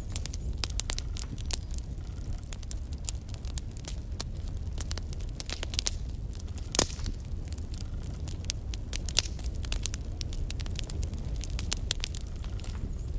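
Wood logs burning in a fireplace: a steady low rumble of the flames with irregular crackles and sharp pops throughout, one louder pop about halfway through.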